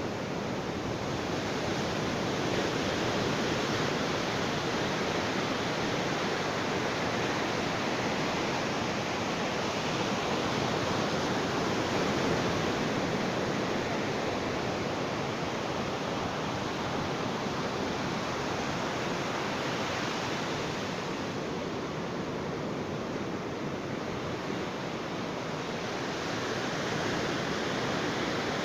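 Ocean waves breaking and washing on a beach: a continuous rushing surf that slowly swells and eases over several seconds, without distinct individual crashes.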